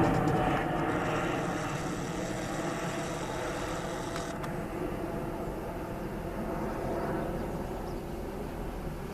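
Airbus A320neo jet engines at go-around thrust, fading steadily as the aircraft flies away.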